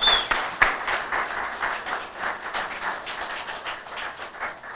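Audience applauding, dense clapping that gradually dies down toward the end.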